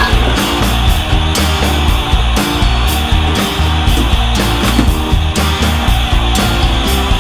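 Loud background rock music with distorted electric guitar, bass and a steady driving beat.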